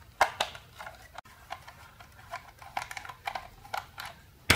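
Screwdriver turning out small screws from a plastic extension-socket housing: a string of light clicks and scrapes, with a louder click about a quarter second in and a sharper one near the end.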